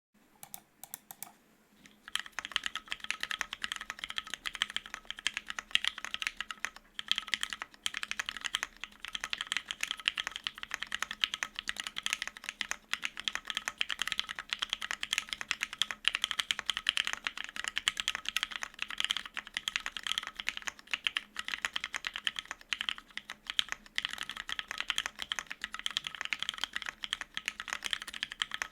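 Continuous fast typing on a custom mechanical keyboard with lubed, filmed Cherry Hyperglide MX Black linear switches in a polycarbonate plate, with GMK double-shot ABS keycaps; a dense run of keystroke clacks starting about two seconds in, with a brief pause now and then.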